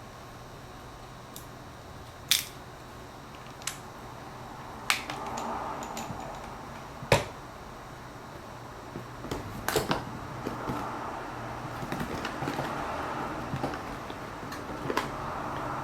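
Camera gear and packaging being handled: several separate sharp clicks a second or two apart, with stretches of rustling in between and toward the end.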